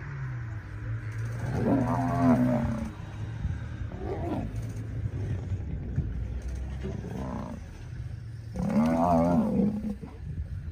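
Lions roaring: two long, loud calls, one about two seconds in and one near the end, with two shorter, fainter ones between, over a steady low rumble.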